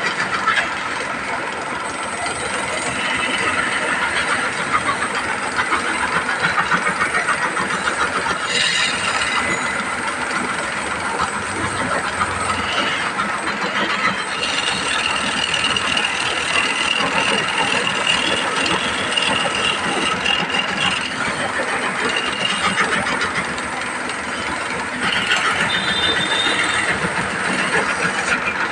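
Machinery clattering and rattling continuously, with a steady high whine for several seconds in the middle.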